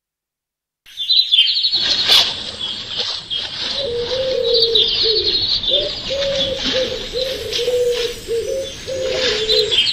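An electroacoustic piece begins out of digital silence about a second in: bird-like sounds, with fast high chittering and a lower wavering tone repeated in short phrases, like cooing.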